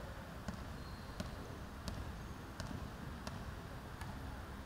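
A basketball being dribbled on a wooden gym floor: a steady, even bounce about three times every two seconds, over a low background hum.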